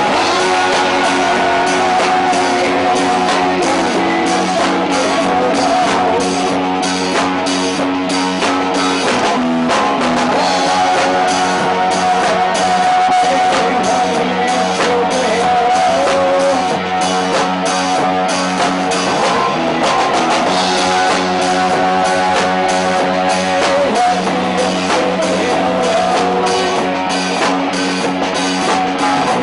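A rock band playing a song, loud and steady: electric guitars over bass and a drum kit.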